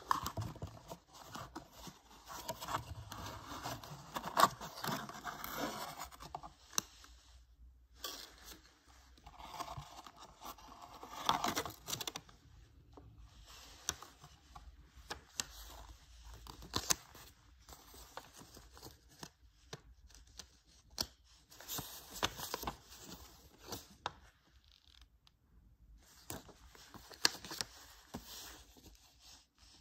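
Gloved hands handling a cardboard box and unfolding a paper instruction leaflet: irregular rustling, scraping and rubbing with sharp clicks, in bursts separated by quieter pauses.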